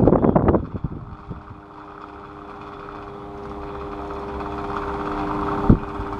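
Electric fan running with a steady motor hum that grows gradually louder. The first half second is loud, irregular rattling, and a single sharp knock comes near the end.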